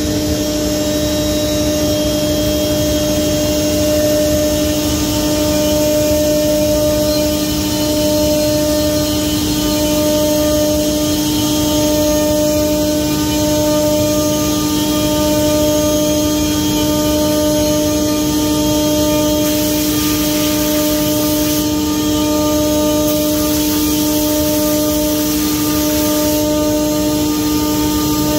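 OMNITECH Mate CNC router running, a steady whine of several tones from its spindle and drives. A brighter hiss swells twice in the last third.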